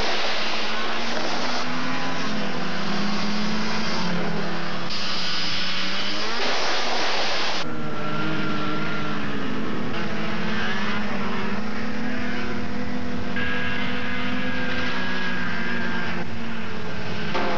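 Snowmobile engine running as it travels over the ice, its pitch rising and falling with the throttle. The sound changes abruptly about eight seconds in.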